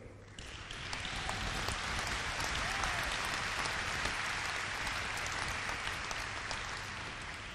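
Crowd applauding. The clapping builds over the first second or so, holds, then slowly fades toward the end.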